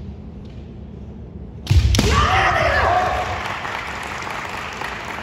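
Kendo exchange: a sudden sharp crack of bamboo shinai striking, a little over a second and a half in, with a loud kiai shout that is held for about a second and then fades into the hall's echo.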